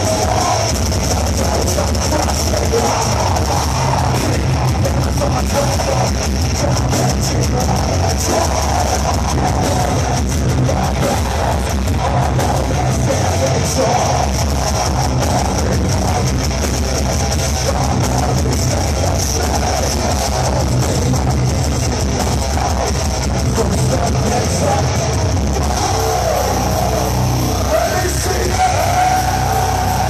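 Heavy metal band playing live at full volume, heard from within the crowd: distorted guitars, bass and drums, with a wavering high line over the top near the end.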